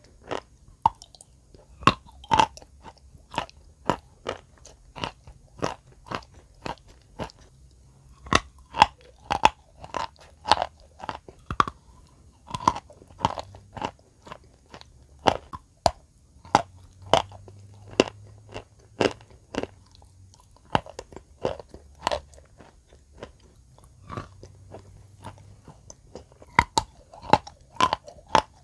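Close-miked crunching and chewing of wet chalk: sharp, irregular crunches, often several a second, broken by a few short pauses.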